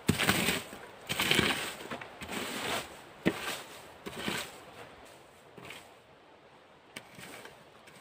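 The back of an old wooden hay rake scraping and swishing through dry pine needles, wood chips and forest litter, in strokes about once a second that grow fainter in the second half.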